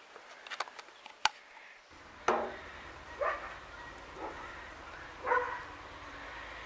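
A dog barking four times, about once a second. Before the barking, a few sharp clicks.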